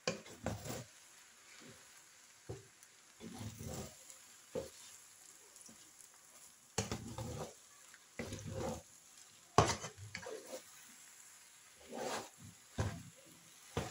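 A spatula stirring and tossing stir-fried noodles in a frying pan, scraping and knocking against the pan in irregular bursts over a faint sizzle, with one sharp knock about two-thirds of the way through.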